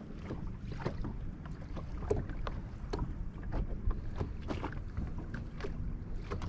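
Water lapping against a fishing boat's hull with a steady low rumble, a faint hum, and many small irregular taps and clicks.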